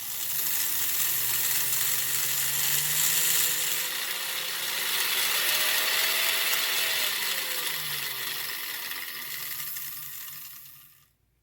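Prewar American Flyer 1093 locomotive's electric motor and gears running on the workbench, freshly oiled: a loud gear whir that starts suddenly, rises in pitch as it speeds up, then slows and fades out near the end.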